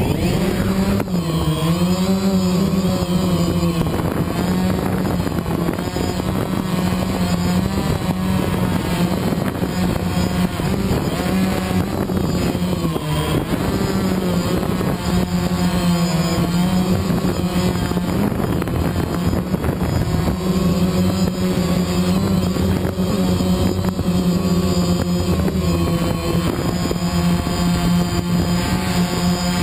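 DJI Phantom quadcopter's four motors and propellers spinning up sharply, lifting off and hovering, heard from the camera on board. The steady buzzing drone wavers in pitch as the throttle changes, most in the first few seconds.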